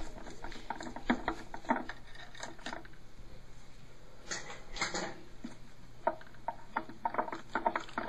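Light, irregular clicks and clatter of a screwdriver and hard plastic parts as the actuator is taken off the top of a Sloan Flushmate pressure-assist cartridge, with a few louder knocks about halfway through.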